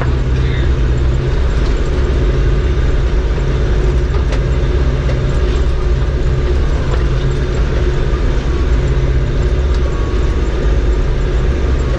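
Farm tractor engine running at a steady speed while pulling a round baler through hay, with a few light ticks from the machinery.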